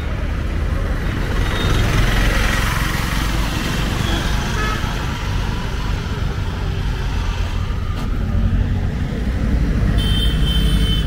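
Street traffic: vehicle engines running close by with a steady rumble, and a horn sounding briefly near the end.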